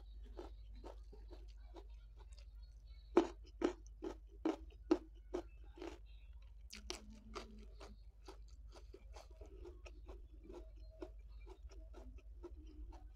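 Close-miked crunching and chewing of raw vegetables dipped in sambal. A run of loud, crisp bites comes about three to five seconds in, followed by steadier, softer chewing.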